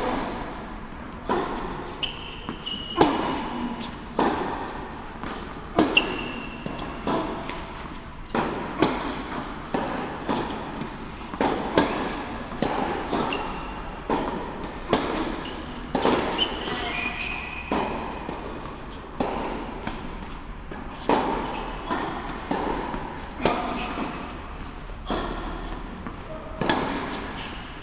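Tennis balls struck by rackets and bouncing on an indoor hard court during a rally: a steady series of sharp pops, about one every second or so, each echoing in the large hall. A few short high squeaks come in between the hits.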